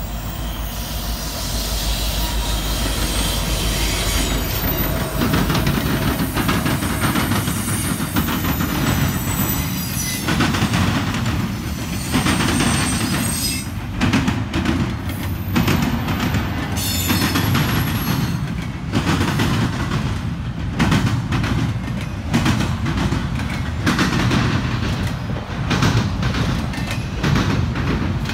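Norfolk Southern double-stack container train passing close by. The diesel locomotives rumble low at first, then the loaded well cars roll past with a rapid clatter of wheels over rail joints.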